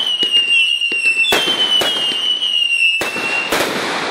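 Aerial fireworks bursting with about five sharp bangs. High whistling fireworks scream over them, sliding slowly down in pitch and cutting off near the end.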